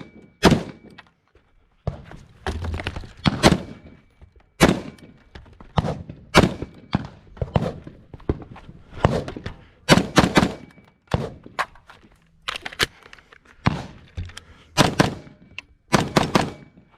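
Rifle shots fired in a steady string, irregularly spaced about half a second to a second apart, each a sharp crack with a short ring after it: a shooter working through a practical rifle stage.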